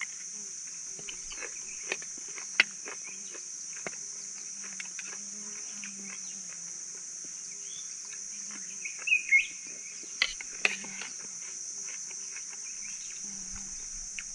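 Steady high-pitched drone of insects, with a few short bird chirps about nine seconds in. Scattered sharp clicks of a spoon and fork against plates.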